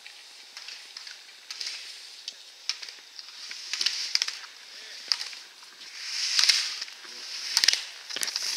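Slalom skis carving turns on firm snow: a hiss of edges scraping that swells with each turn, about once a second, growing louder as the skier comes close, with sharp clacks between.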